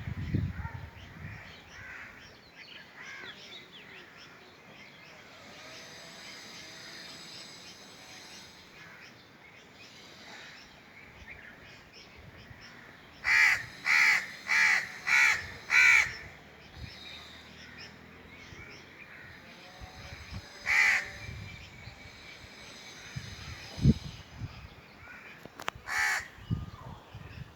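Crows cawing: a quick run of five harsh caws about halfway through, then single caws later on, with fainter distant calls in between. A brief low thump comes near the end.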